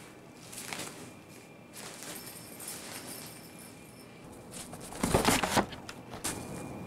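Crinkling and rustling of a collapsible cat tunnel's fabric as a cat scrabbles and rolls inside it, with a louder scuffle about five seconds in.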